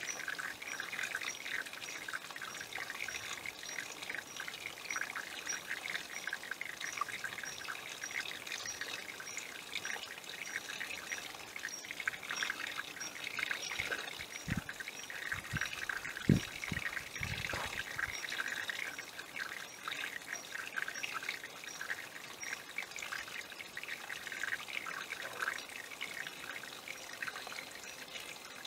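Small hillside runoff stream trickling and splashing steadily over stones. A few low thumps come around the middle.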